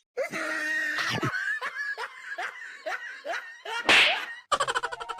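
A person laughing in a quick run of short, falling 'ha' sounds. About four seconds in there is one brief loud noisy burst.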